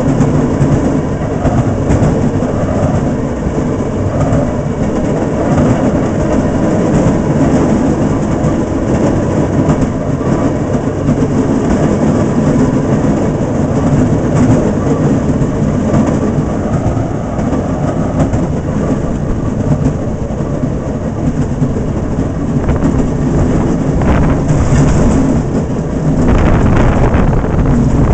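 Fairmont speeder car running steadily along the rails, heard from inside its cab: engine noise mixed with the wheels rattling and clicking over the track.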